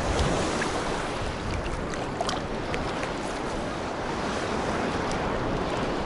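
Small sea waves lapping and splashing against a camera held at the water's surface, with a few brief droplet ticks and wind on the microphone.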